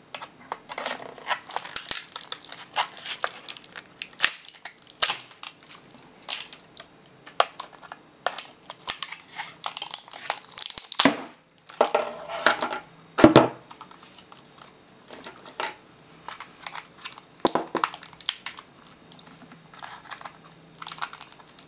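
Black plastic laptop battery case being pried and broken apart with pliers and a screwdriver: irregular cracking, crunching and snapping of plastic, with the loudest snap about 13 seconds in.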